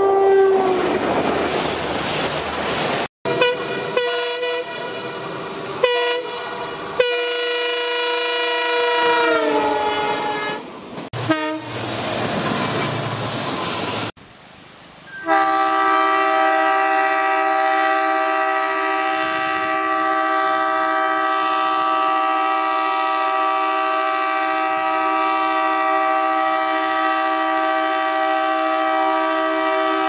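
A run of Indian Railways locomotive horns. First comes the rumble of a passing electric locomotive. After a cut come several short horn blasts, one dropping in pitch as its train goes by. From about halfway, an approaching ALCO-built WDM-series diesel locomotive sounds a long, steady multi-note horn that is held unbroken to the end.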